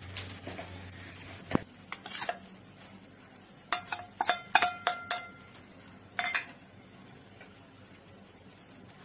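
Stainless-steel bowls clinking: a small steel bowl knocks against the rim of a larger one as flour is tapped out of it. A few light knocks come first, then a quick run of ringing metallic clinks in the middle, and one more shortly after.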